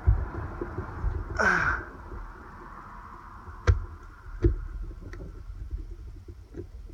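Small plastic parts of a Land Cruiser 80 Series power window switch assembly being handled and pressed together: a few sharp clicks, the two loudest a little under a second apart near the middle, over a low rumble. A short breathy exhale about one and a half seconds in.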